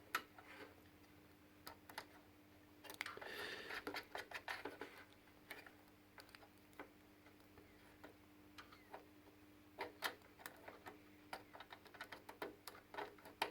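Faint scattered clicks and a short patch of rustling about three to five seconds in, as test leads and controls are handled on the bench, over a faint steady hum.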